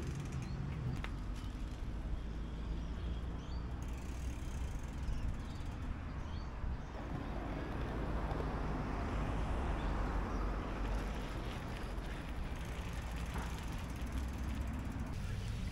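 A bicycle being ridden: steady tyre and riding noise with wind rumbling on the microphone.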